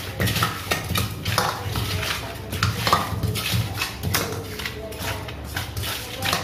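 Small tangra catfish being mixed by hand with spices in a stainless steel bowl: irregular clinks and knocks of fish and hands against the steel, several a second.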